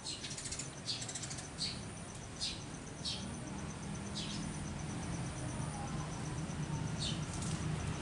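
Domestic tom turkey strutting in courtship display around a crouched hen: a series of brief dry rustles and scrapes of feathers and lowered wing tips on gravel, with a low hum that grows from about halfway.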